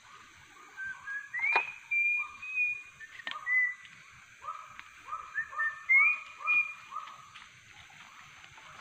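Whistled calls: a string of short notes repeated about two a second, mixed with higher held whistles that rise at their start, loudest about a second and a half in and again about six seconds in. A steady high-pitched drone runs underneath.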